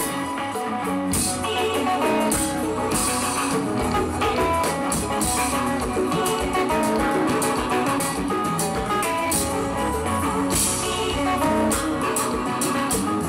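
Konpa band music with a prominent guitar over a steady beat.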